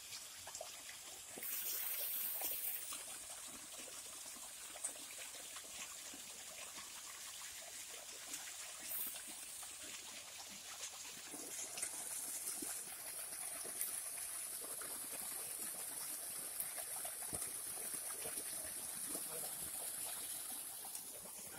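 Water gushing steadily from an irrigation pump's outlet pipe and splashing onto the ground and into a field channel.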